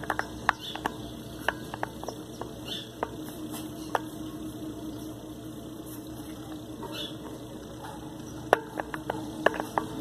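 Fingers pressing and crumbling potting soil around a succulent in a small terracotta pot, making irregular light crackles, scratches and small taps, over a faint steady hum.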